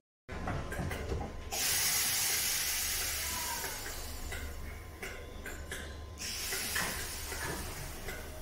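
A loud, even hiss that comes in about a second and a half in and drops away about six seconds in, over a steady low rumble.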